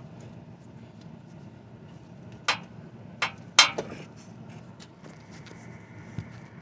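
Handling noise: a few sharp knocks and clicks, the loudest about three and a half seconds in, over a low steady hum.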